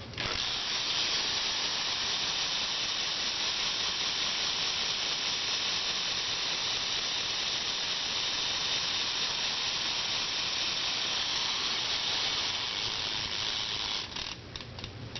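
Sputnic Rewind rear BMX hub freewheeling, its pawls clicking so fast they blur into a steady buzz as the rear wheel spins. About fourteen seconds in, the buzz breaks up into separate clicks as the wheel slows.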